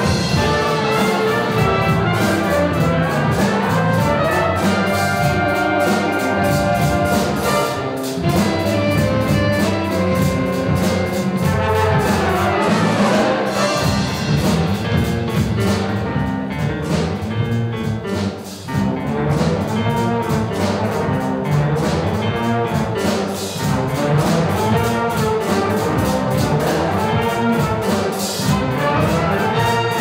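A student jazz band playing: trumpets, trombones and saxophones over a rhythm section of drum kit, bass guitar, electric guitar and piano, with a steady beat.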